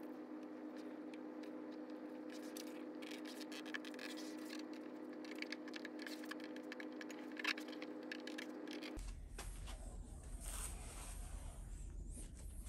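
Faint scratching and tearing of double-sided mounting tape being pulled off the roll, cut and pressed into place by hand, with scattered small clicks. A steady hum of several tones runs underneath and gives way abruptly to a lower hum about nine seconds in.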